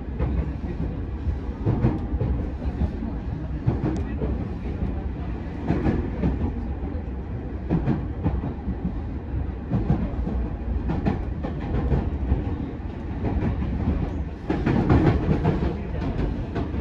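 Running sound of a JR 209 series 2100-subseries electric commuter train, heard inside the passenger car: a steady rumble of wheels on rail with clicks over rail joints about every two seconds. It gets louder for a moment near the end.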